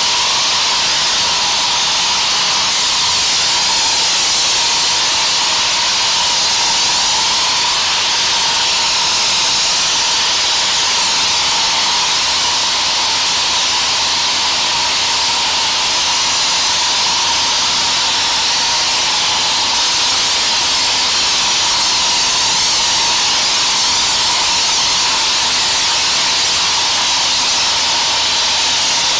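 High-pressure washer spraying foam sealant: a steady, continuous hiss of spray with a thin steady whine running through it.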